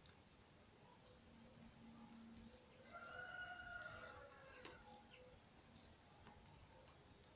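Near silence, with faint clicks and a faint rustle of a woven plastic sack as a cat turns around on it and curls up. A faint held tone is heard for about a second and a half, starting about three seconds in.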